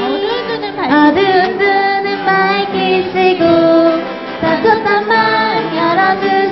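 Children's praise song: children and a woman singing together over instrumental accompaniment.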